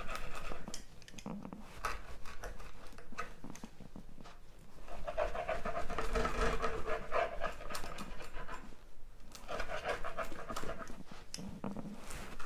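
Large pizza wheel crunching through a crisp-baked Flammkuchen crust and scraping on a stoneware pizza stone, in several cutting strokes, the one about halfway through the loudest.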